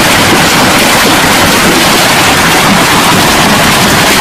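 Heavy hail pelting down: a loud, steady, dense hiss with no let-up.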